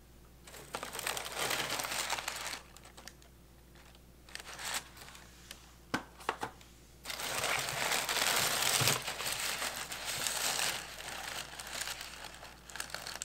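Brown honeycomb kraft paper packing wrap and tissue paper crinkling and rustling as hands rummage through a box of products. It comes in several bouts, the longest and loudest about seven to eleven seconds in, with a few sharp clicks around six seconds in.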